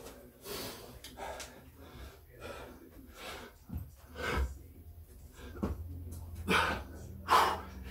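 A man breathing hard from the exertion of burpees, with a series of heavy exhales. There is a thump about four seconds in as he drops to the floor into the push-up position.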